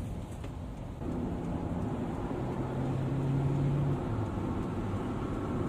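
A car driving, with steady road and engine noise. A low steady hum rises above it from about two and a half to four seconds in.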